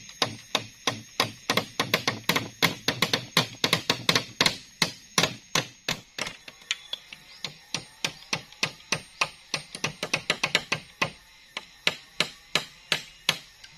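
A rapid, uneven series of sharp knocks or chopping strikes, about four or five a second, thinning out over the last few seconds.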